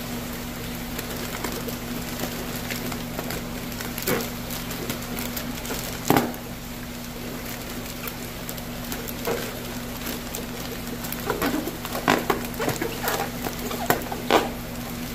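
Plastic fish-shipping bag crinkling and crackling as the outer bag is pulled and torn off the sealed inner bag. The crackles are scattered, with a sharp one about six seconds in and a cluster near the end, over a steady low hum.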